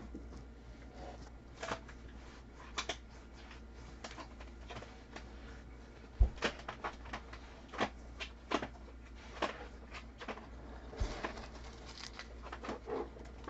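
2019 Bowman's Best baseball cards being handled and sorted, giving faint, irregular clicks and rustles.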